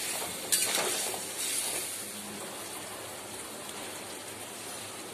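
Chicken pieces sizzling in oil in a kadai, with a steady hiss, as onion, ginger, garlic and tomato paste is stirred in. A metal spatula knocks against the pan about half a second in.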